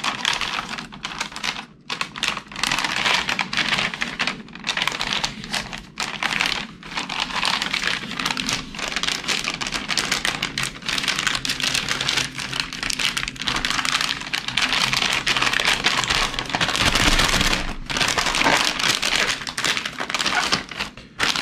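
MRE retort pouches and the plastic flameless ration heater sleeve crinkling and rustling as the pouches are pushed into the sleeve, a dense, continuous crackle of plastic with only brief pauses.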